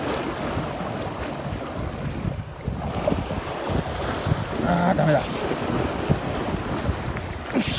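Sea waves surging and splashing against concrete breakwater blocks, mixed with wind buffeting the microphone.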